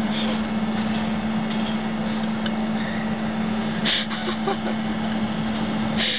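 Steady hum of a truck engine heard from inside its metal cargo box. Two short clattering noises come through, one about four seconds in and one near the end.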